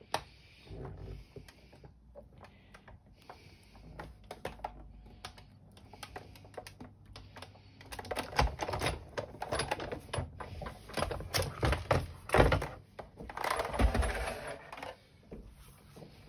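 Sizzix Big Shot die-cutting machine cranked slowly by hand as a Spellbinders Betterpress platen rolls through its rollers: a run of irregular clicks and creaks. They grow louder and denser about halfway through.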